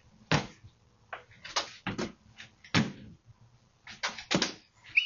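A string of irregular knocks and thuds, about nine in all, some coming in quick pairs.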